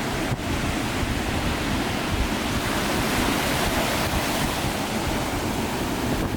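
Sea surf washing onto a beach, a steady rushing noise, with wind buffeting the microphone.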